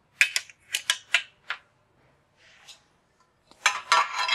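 Sharp metallic clicks and clinks as a gusset magnet is set against a steel frame tube and a steel gusset plate is snapped onto its magnetic hex bolts. There are five or six quick clicks in the first second and a half, then a dense cluster of clinks near the end.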